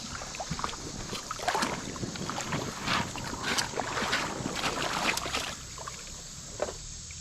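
Creek water splashing and sloshing in a run of irregular splashes for about four seconds, then settling to a quieter wash.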